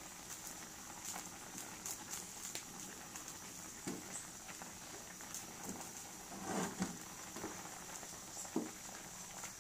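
Meat boiling in liquid in a metal wok, with a wooden spatula stirring and knocking against the pan several times, loudest about six and a half seconds in.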